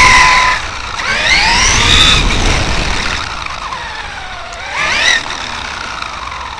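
Hobbywing 2200kV brushless motor and spur-gear drivetrain of a Traxxas E-Revo RC truck whining as it is throttled: the pitch rises about a second in, sinks slowly, then climbs sharply again near five seconds and cuts off, heard close up from a camera on the chassis.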